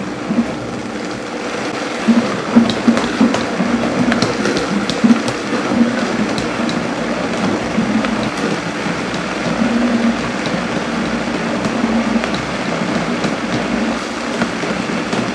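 Countertop blender running at speed, chopping tomatoes, onion, cilantro and jalapeños into salsa, with pieces knocking against the jar and blades in the first few seconds before it settles to a steadier whir as the mix turns to purée.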